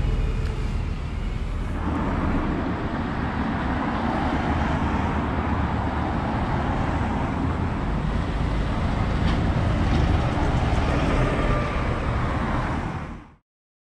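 Road traffic on a city street: a double-decker bus's engine fades away during the first two seconds, then passing cars give a steady rush of tyre and engine noise. It all fades out a little after 13 seconds.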